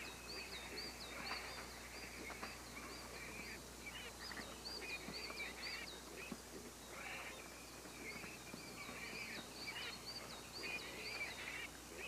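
Japanese wild boar piglets squeaking and squealing softly while suckling, a rapid run of short, high chirps with occasional louder squeals.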